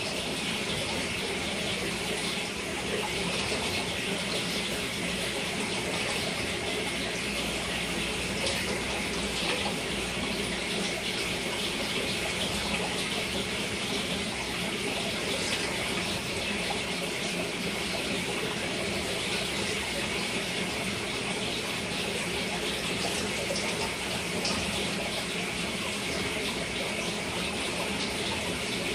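Steady rush of running water circulating in a large home aquarium, with a faint low hum underneath.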